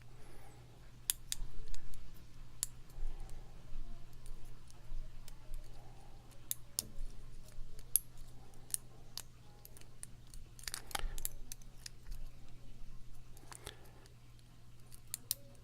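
Lock being picked with a hook pick and tension wrench: small metallic clicks and ticks at irregular intervals as the pins are lifted, with a louder cluster of clicks about eleven seconds in. A faint steady low hum sits underneath.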